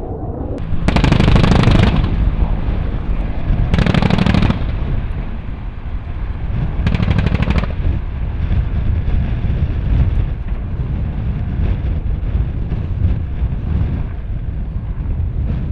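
Three bursts of rapid automatic gunfire, each under about a second long, spaced about three seconds apart. After them comes the steady rotor and engine sound of an AH-1 Cobra attack helicopter flying past.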